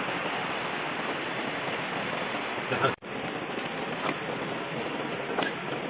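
Steady rushing, rain-like noise, with a few faint ticks.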